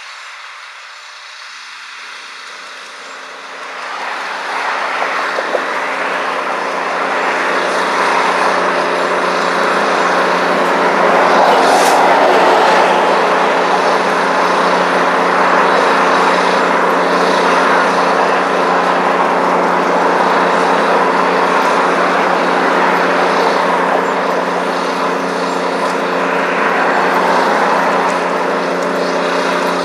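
Canadian Pacific EMD FP9A diesel locomotive with its engine running steadily: a low droning hum of several steady tones under a broad engine noise that swells louder about four seconds in and then holds.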